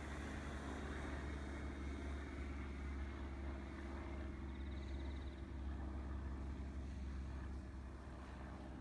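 Remote-control FMS T-28 Trojan model plane in flight, its onboard sound module playing a steady, low piston-engine drone over its electric motor and propeller. It grows a little fainter near the end.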